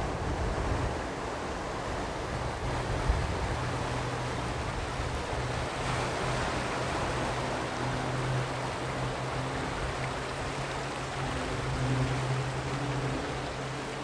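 Sea waves washing onto the shore in a continuous wash of surf, with a steady low hum underneath that fades in and out.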